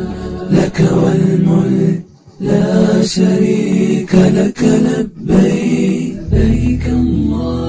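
Unaccompanied voices chanting a religious chant in long held notes, with a short pause about two seconds in.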